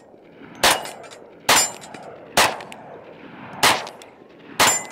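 Five shots from a Coonan .357 Magnum 1911 pistol, fired at an unhurried pace of about one a second.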